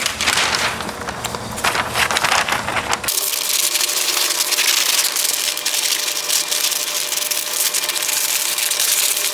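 Paper being cut out with scissors, crackling and rustling. About three seconds in, the sound changes abruptly to a steadier hiss and the low hum drops out.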